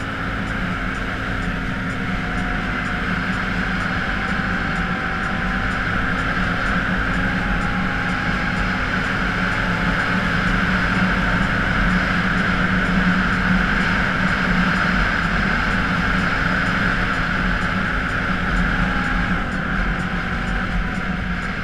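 Can-Am Outlander ATV engine running steadily under way, a constant drone whose pitch dips slightly a couple of times. It grows a little louder through the middle and eases off near the end.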